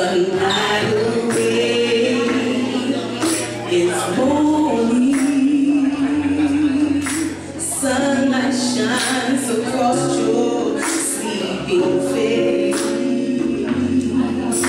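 A woman singing a soul ballad live with long held, wavering notes, over sustained electric keyboard chords and light percussion hits.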